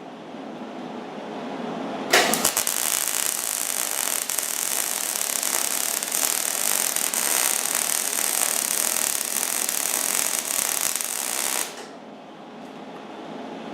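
Millermatic 90 wire-feed welder's arc crackling steadily through one continuous weld bead of about nine and a half seconds, starting and stopping abruptly, as a patch is welded onto a snowblower's impeller housing.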